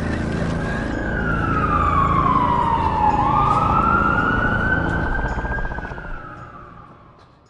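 Siren wailing in a slow sweep: its pitch glides down for about three seconds, jumps up and rises again, then sinks and fades away near the end, over a low rumble.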